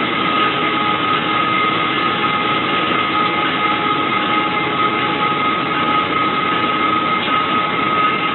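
Locomotive running along the track, heard from the cab: a steady rumbling noise with a thin, steady high tone over it.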